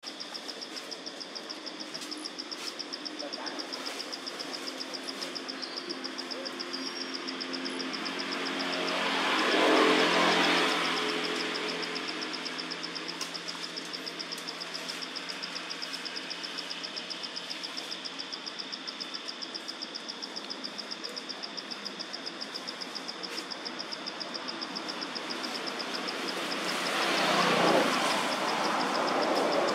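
Steady, high-pitched, rapidly pulsing insect buzz over a low engine hum. A motor vehicle passes twice, swelling and fading about ten seconds in and again near the end.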